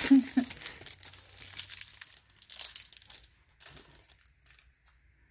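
A trading card pack wrapper being crinkled and torn, a dense crackle for the first two or three seconds, then only a few scattered crinkles and clicks.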